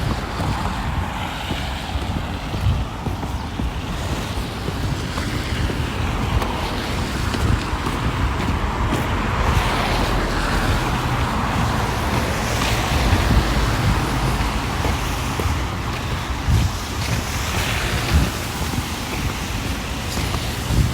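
Street traffic passing, the tyre noise swelling and fading as each vehicle goes by, over a steady low rumble of wind on the microphone.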